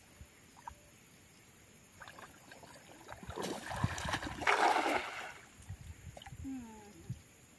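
Cast net landing on the water: a splash about halfway through that lasts about two seconds.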